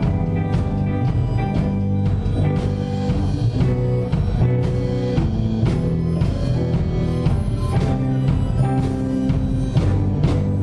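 Live church praise band playing a song, electric guitar and drum kit over a steady beat.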